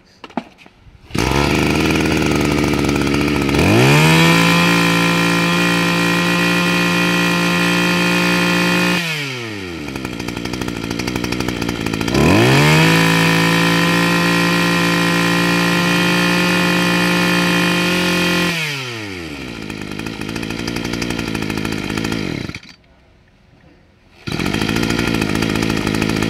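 Echo CT24 24cc two-stroke brush cutter engine catching about a second in and idling, then revved up to full speed and held there twice, dropping back to idle after each. Near the end it cuts out and is started again about a second and a half later, idling.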